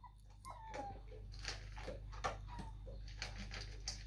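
Faint whimpers from three-week-old German Shepherd–Labrador mix puppies, a few short falling squeaks in the first second, with scattered soft clicks and rustles as the pups shift about.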